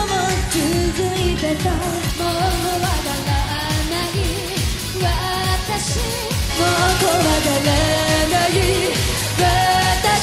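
Live J-pop: a woman sings lead into a handheld microphone over a pop band backing with a steady beat. The audio cuts abruptly between different concert recordings of the same passage about two seconds in and again about halfway through.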